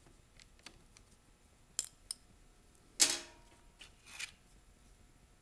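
Small metallic clicks and plastic knocks as an Allen key works the cover bolts and the plastic muffler cover of an Echo SRM-230 string trimmer is pulled off. Two sharp clicks come a little under two seconds in, the loudest knock, with a brief ring, about three seconds in, and a smaller clatter a second later.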